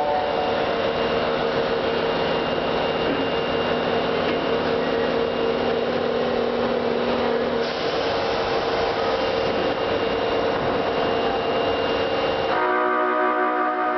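Osaka Municipal Subway 22 series train running in the station, a steady dense rumble with a steady whine over it that changes character about eight seconds in. Near the end the low rumble drops away and a set of steady tones takes over.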